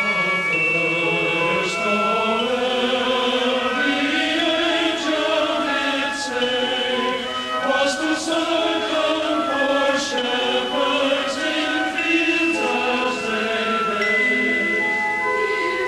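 Choral music: voices singing slow, held lines over a steady instrumental accompaniment.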